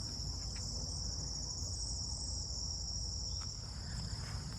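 Steady high-pitched chorus of crickets or similar insects in tall summer weeds, with a low rumble underneath.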